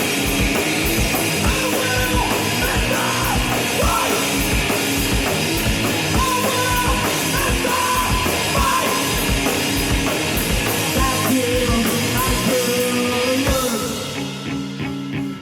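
Live grunge/noise-rock band playing loudly: Fender Telecaster electric guitar, a driving drum kit with dense cymbal hits, and yelled vocals. Near the end the drums and cymbals drop away and the guitar rings on alone.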